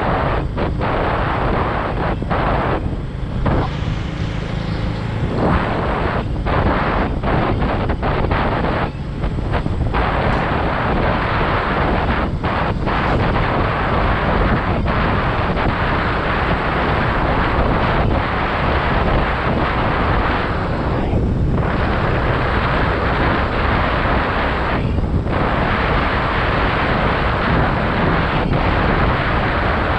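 Wind rushing and buffeting over the microphone of a camera riding on a moving motorcycle, with a few brief lulls.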